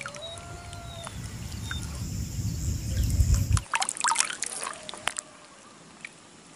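Water sloshing and trickling around a chest-deep wading angler, building and then cutting off abruptly a little past halfway. A brief burst of splashes and drips follows.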